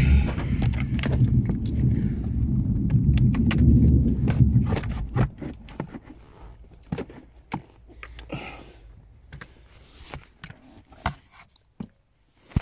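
Muffled rubbing and handling noise on the phone's microphone, loud and low, stopping about five seconds in. Then scattered clicks and light scrapes of hands and a plastic trim tool working in the car's footwell, with one sharp click near the end.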